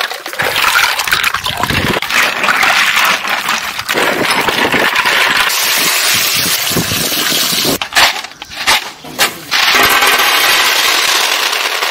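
Freshwater snails splashing into a metal pot of water and clattering against the metal, then water gushing over a basin full of snails. A few seconds from the end, shells clatter as they drop onto a metal plate.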